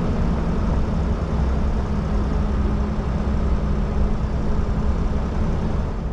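Van driving on a dirt road: a steady low engine hum with tyre and road noise from the unpaved surface.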